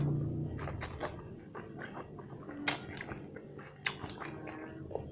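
Close-up eating of instant curry noodles: soft wet mouth clicks from chewing and drawing in noodles, irregular and scattered.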